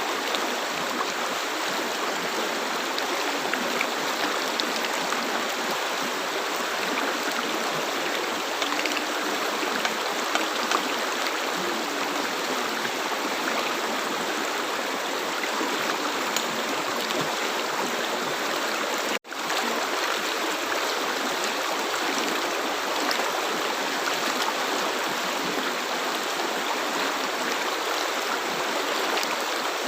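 River water flowing, a steady rushing and babbling with no break except one instant where the sound cuts out about two-thirds of the way through.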